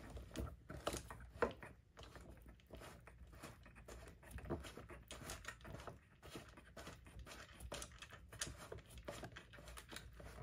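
A socket head screw with washer being turned by hand into a mount on a replica proton pack: faint, irregular scratching and light clicks of fingertips and threads.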